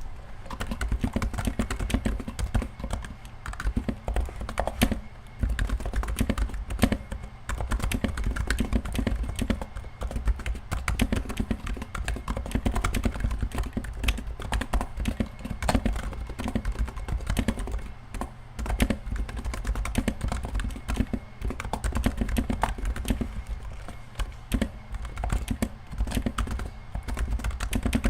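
Steady fast typing on a Happy Hacking Keyboard Professional 2 Type S whose Topre switches are lubed and fitted with Topre-to-MX sliders carrying SA keycaps: a dense run of keystrokes with no real pause.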